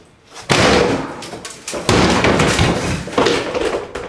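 Wooden kitchen cabinets being smashed out with a heavy tool: three loud crashing hits about a second and a half apart, each followed by splintering and rattling.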